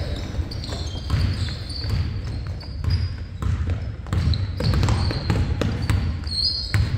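Basketball game: the ball bouncing on the court, sneakers squeaking, and a background of crowd voices.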